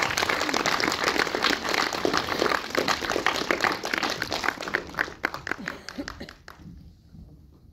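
Audience applauding in a cinema hall, the clapping thinning out and dying away over the last couple of seconds.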